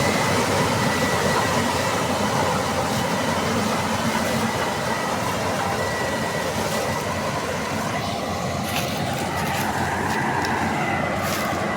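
Combine harvester running: steady, loud machine noise with a thin high whine, easing a little in the last few seconds.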